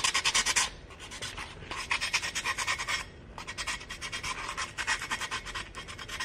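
Sandpaper rubbing back and forth on the rim of a glass: quick, rasping strokes, several a second, in runs broken by short pauses, smoothing down a chip in the edge.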